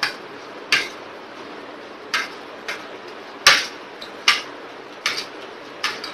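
A metal spoon clinking against a ceramic plate while scooping up rice and vegetables: a series of about eight short, sharp clinks, roughly one a second, the loudest about three and a half seconds in.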